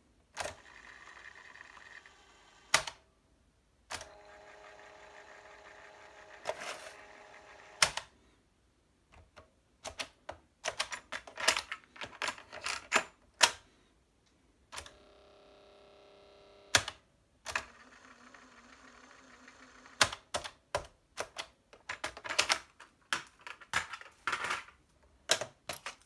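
Sanyo M-W15 boombox's cassette mechanism being worked: sharp clicks and clunks of its piano-key transport buttons and cassette doors, with the tape drive whirring steadily in several stretches between presses. A dense run of clicks and plastic clatter near the end as a cassette is handled and taken out.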